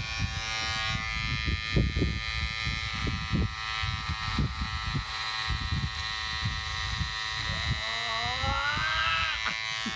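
Cordless electric hair clipper running with a steady buzz as it is drawn through a thick beard, with uneven crackling as the blades cut the hair in the first half.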